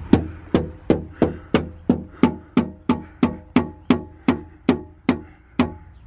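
The heel of a hand striking a Jeep Wrangler's replacement tailgate about three times a second, each strike a hollow knock with a short rattle and ring. The owner reads this hollow rattling as a sign the new tailgate will develop the same rattle as the old one.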